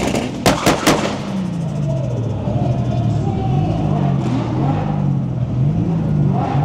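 Three sharp exhaust bangs in quick succession about half a second in, then a car engine revving up and down repeatedly.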